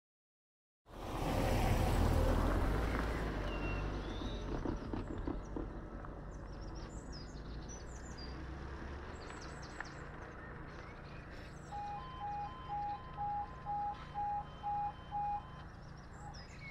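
A low rumble, loudest near the start and fading over a few seconds, with birds chirping. Then, from about twelve seconds in, the level crossing's E2S Appello electronic alarms beep in short pulses, a little over two a second, about eight beeps in all, two alarms slightly out of step: the warning that the crossing sequence has begun and a train is due.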